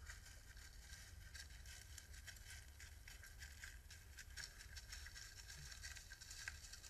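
Near silence: faint, irregular ticking over a low, steady hum.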